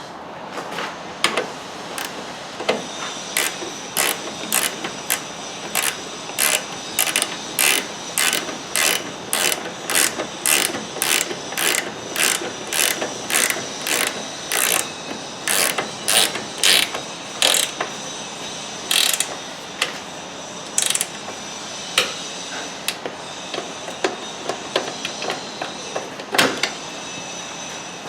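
Hand ratchet wrench tightening suspension fasteners, its pawl clicking in a steady run of quick strokes, about two a second, then slowing to scattered single clicks in the second half.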